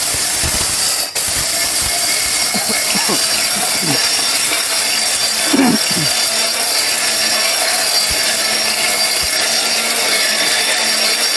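A heavy-duty electric mixer grinder's motor running at full speed, grinding corn in its large jar: a loud, steady, hissing grind. It drops out briefly about a second in.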